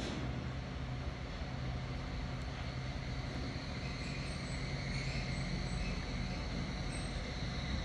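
Steady low hum with an even background hiss, like a motor or machine running continuously.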